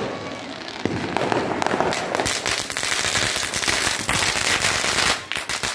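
Diwali firecrackers going off all around: a bang about a second in, then a dense run of rapid crackling pops, and several sharp bangs near the end.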